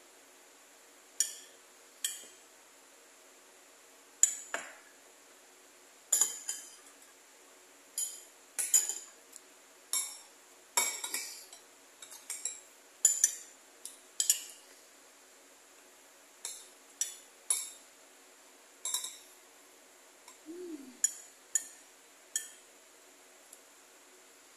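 Metal spoon clinking and scraping against a bowl while scooping jelly cubes, in short sharp taps about once a second at an irregular pace.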